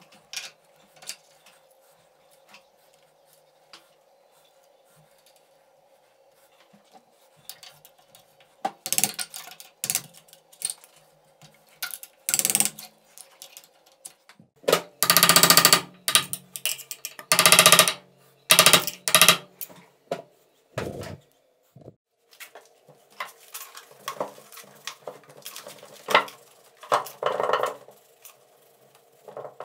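Work on metal machine parts: irregular knocks and clinks, with several louder, longer bursts in the middle, over a faint steady hum.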